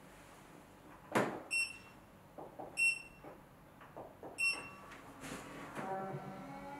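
Furbulous Box automatic litter box: three short electronic beeps about a second and a half apart as its touch button is pressed, among a few soft knocks. Near the end its motor starts with a steady hum as the Smart Clean cycle begins.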